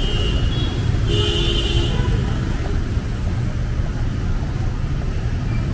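Street traffic of cars and motorbikes passing on a wet road, a steady rumble with tyre hiss, and a brief higher-pitched sound about a second in.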